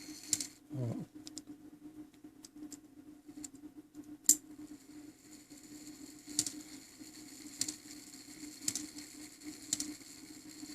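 Japy Frères French clock movement striking the hour: the hammer hits the bell about once a second in the second half, each blow ringing on, with lighter clicks of the movement and hand before.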